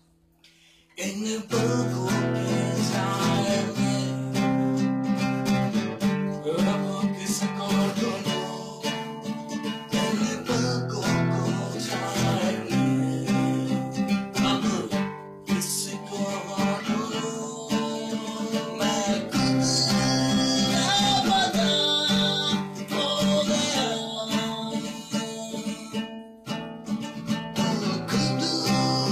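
Guitar being played through a song, starting about a second in after a brief silence.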